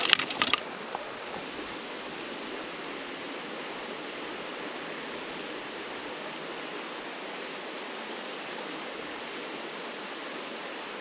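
A short splash in the first half-second as a small brook trout drops back into the creek, then the steady rush of flowing creek water.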